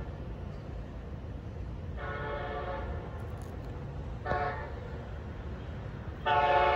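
Amtrak Acela trainset approaching, sounding its horn: a long blast about two seconds in, a short one just after four seconds, then a louder long blast near the end.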